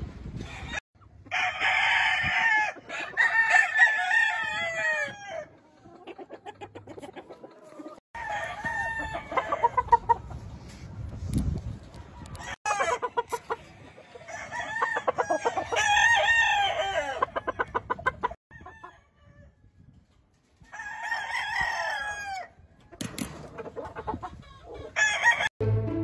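Game roosters crowing, a string of long crows one after another with short pauses between, and clucking in the gaps.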